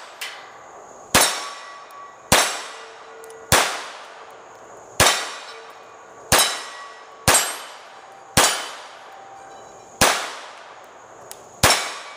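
Bersa Firestorm .22 LR semi-automatic pistol firing Remington Thunderbolt rounds: nine single shots about a second to a second and a half apart, each with a short echoing tail. The pistol keeps cycling without a jam, its feed ramp freshly reshaped and smoothed.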